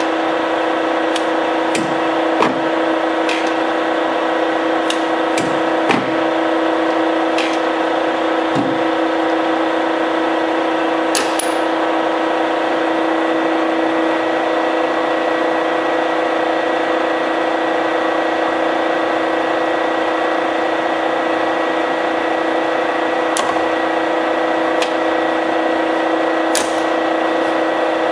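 Warner & Swasey #3 ram-type turret lathe running with a steady hum of several fixed tones. Sharp clicks and clunks from its handles and turret as the ram is worked by the capstan handwheel: several in the first few seconds and a few more later.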